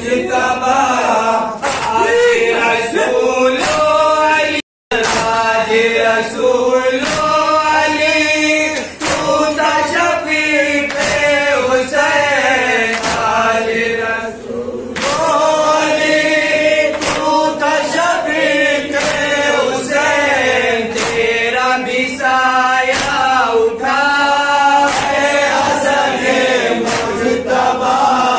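Noha, a Shia lament, chanted by a group of men into microphones, the reciters' voices joined by others in unison. Under the chanting runs a steady beat of sharp slaps roughly every three-quarters of a second. About five seconds in, the sound cuts out completely for a moment.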